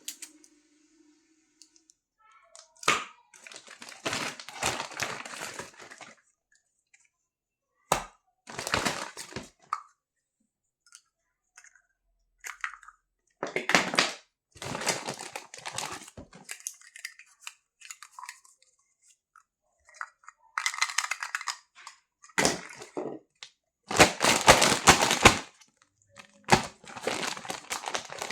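Plastic packaging crinkling in irregular bursts, with a few sharp clicks, as a toy kitchen set is unboxed. The loudest burst comes near the end.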